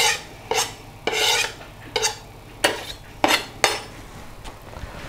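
Knife blade scraping chopped sorrel off a plastic chopping board into a saucepan: about seven short scrapes in quick succession, fading to faint ones after about four seconds.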